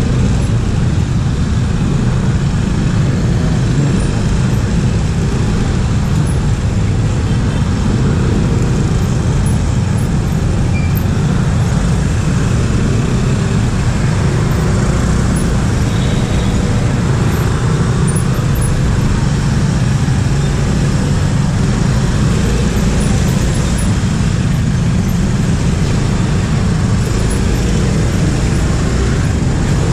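Steady traffic noise heard from a motorcycle riding slowly in dense city traffic: engines of the motorcycle and the surrounding cars and motorbikes running, as a deep, even rumble with no sudden events.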